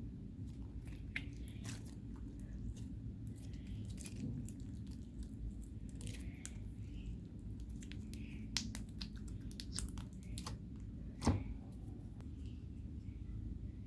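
Hands kneading and stretching slime, with scattered small sticky clicks and crackles over a low steady hum, and one louder click about eleven seconds in.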